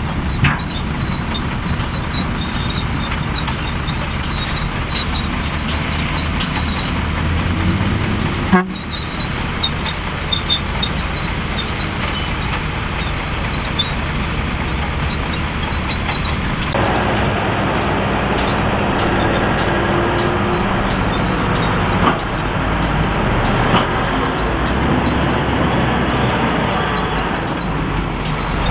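Heavy diesel engines of a bulldozer and dump trucks running steadily at work. The sound breaks off abruptly about 8 seconds in and shifts in tone about 17 seconds in.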